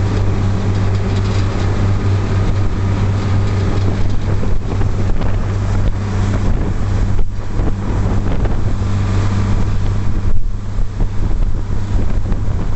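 Small passenger ferry's engine running with a steady low drone, under rushing wind and water noise buffeting the microphone.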